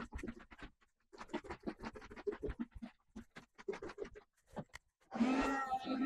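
A glass lightboard being wiped clean: runs of quick scratchy rubbing strokes across the glass, broken by short pauses. Background music comes in near the end.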